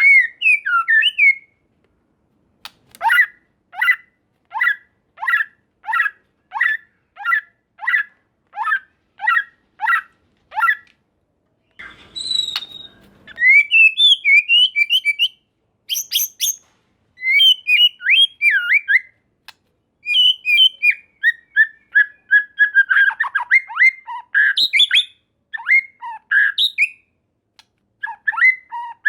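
White-rumped shama (murai batu) singing. A run of about a dozen evenly spaced, falling whistled notes comes at roughly one and a half a second, then a short harsh rasp, then a long run of rapid, varied whistles and chattering phrases.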